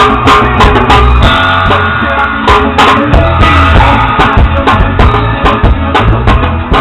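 Drum kit played with two thin wooden skewers instead of drumsticks, in a steady rock beat of quick, frequent hits over recorded rock music with guitar and bass.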